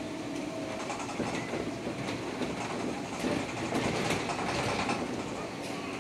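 Škoda 32Tr trolleybus under way, heard from inside the cabin: steady road and tyre noise with irregular rattles and knocks from the body.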